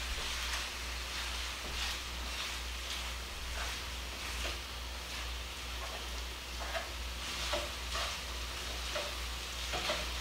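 Ground sausage sizzling as it browns in a nonstick skillet, with a spatula stirring and scraping through the meat in short, irregular strokes.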